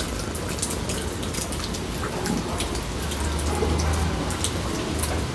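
Tabby cat purring on a lap, heard as a low steady rumble that swells about three seconds in, under a dense crackle of fur rubbing close against the microphone.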